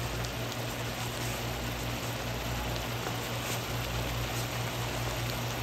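Cast iron skillet of deer meat, peppers and onions sizzling and steaming in its own juice, with faint crackles, over a steady low hum.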